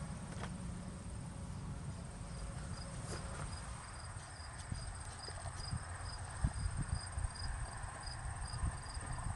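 Insects calling: a steady high trill with a regular high chirp a few times a second, like crickets on a late-summer evening. Underneath are a low rumble and a few soft bumps.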